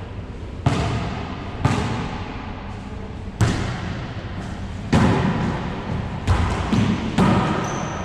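Wallyball being struck by hands and rebounding off the walls and floor of an enclosed racquetball court: about seven sharp smacks spread unevenly through the rally, each ringing out in a long echo.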